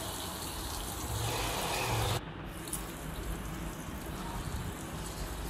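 Sliced red cabbage, carrot and bell peppers sizzling in oil in a miniature kadai, a steady hiss that drops abruptly in level about two seconds in and carries on lower.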